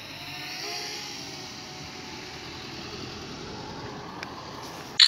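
Steady outdoor background noise with faint distant voices in the first second, ending in a brief loud burst.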